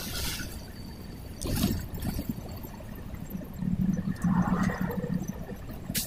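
Bus running at highway speed, heard from inside the cabin: steady engine and road rumble. A louder low drone swells up past the middle and fades, and a sharp click comes near the end.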